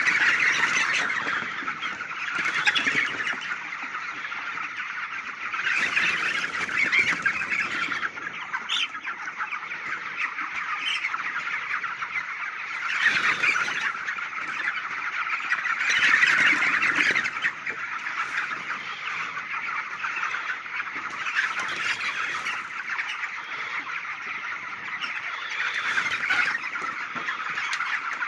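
A large flock of poultry calling all at once, making a dense, continuous din of many overlapping calls that swells louder now and then.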